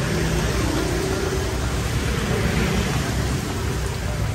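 Steady street ambience beside a wet road: an even hiss with a low rumble of passing motorbike and car traffic.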